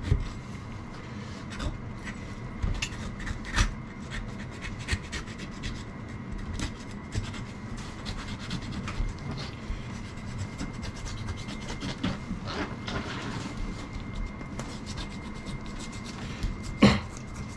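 Knife scraping and cutting on a cutting board while a softshell turtle is butchered, with scattered knocks and one sharp loud knock near the end.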